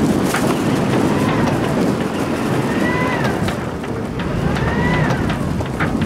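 Steady rush of wind and water on the deck of a sailing yacht moving slowly under its engine. Three short, faint tones rise and fall at about one, three and five seconds in.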